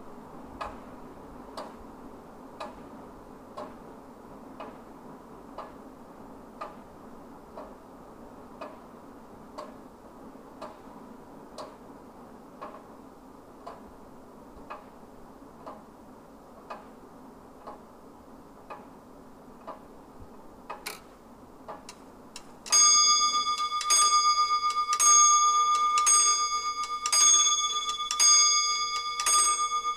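Wall clock ticking about once a second. A little over twenty seconds in, a bell starts striking about once a second, much louder than the ticking and ringing on between strokes: the clock striking twelve at midnight.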